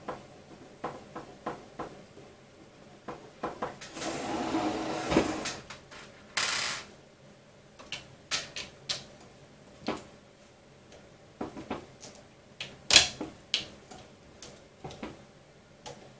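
Clicks, taps and knocks of hands working on 3D printer parts, with a short scraping rattle about four seconds in and a sharper knock near the end.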